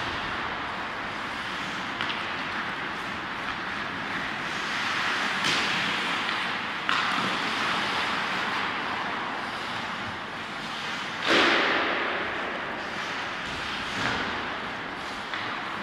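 Ice hockey play in an echoing indoor rink: skate blades scraping and hissing on the ice, with a few sharp clacks of sticks and puck. Several sudden louder swells of hiss, the strongest about two-thirds of the way through.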